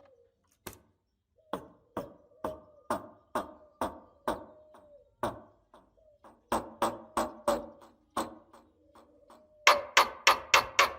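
Rhythmic percussive knocking, like a wood-block beat, about two knocks a second over a faint steady tone. Near the end it turns louder and quicker, about three knocks a second.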